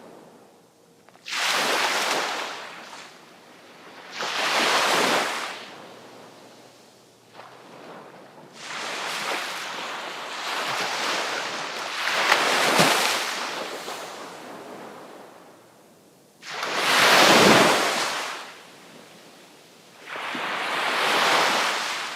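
Sea waves breaking on the shore one after another: about six surges of rushing water, each swelling and then fading over a few seconds. The strongest comes about three-quarters of the way through.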